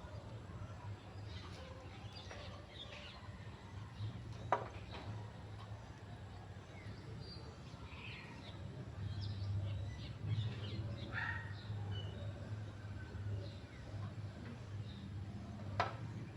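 Faint bird chirps scattered over a steady low hum, with two sharp clicks, one about four seconds in and one near the end.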